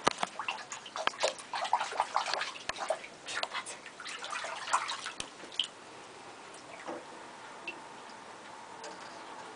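Shallow bathwater splashing and sloshing as a hand moves through it in a tub: a busy run of small splashes for the first six seconds or so, then only a few faint isolated drips and splashes.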